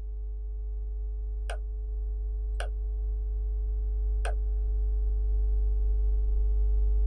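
Three single computer-mouse clicks, about a second or two apart, over a steady electrical hum that slowly grows louder.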